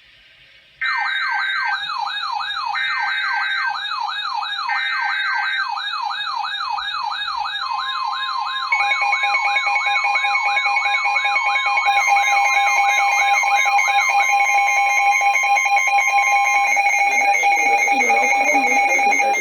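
Emergency Alert System alert tones: three short bursts of digital header data, followed by a steady Weather Radio attention tone lasting about nine seconds, layered over a fast electronic siren warble that rises and falls about three times a second, then further steady alarm tones.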